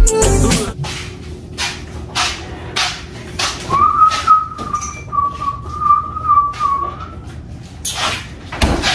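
A person whistling one held, slightly wavering note for about three and a half seconds, among scattered knocks and clicks.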